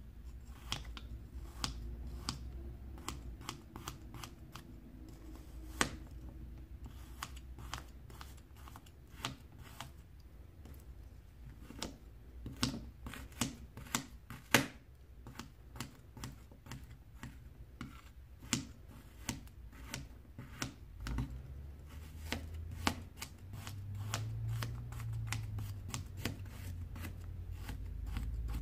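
Metal palette knife cutting and crushing pieces of frozen acrylic paint on a hard surface: an irregular run of sharp crunches and clicks, thickest around the middle and near the end, over a low steady hum.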